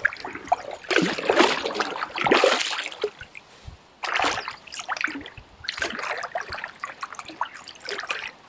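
Water splashing and trickling in irregular bursts, loudest in the first few seconds, as a hooked carp fights in shallow water at the bank.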